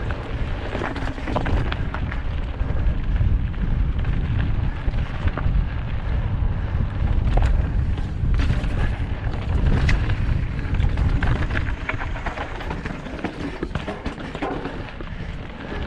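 Mountain bike descending a rocky dirt trail, heard from a camera on the bike: a heavy low rumble of wind buffeting the microphone, with the tyres crunching over rocks and loose stones and the bike rattling in many small clicks and knocks.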